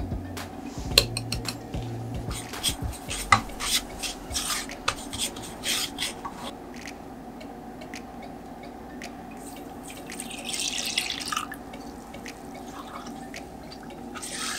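Cooking sounds in a non-stick pot: taps and clicks as flour is tipped in from a small glass bowl and a silicone spatula works through the dry powder, then milk poured in from a plastic measuring jug about ten seconds in, followed by stirring.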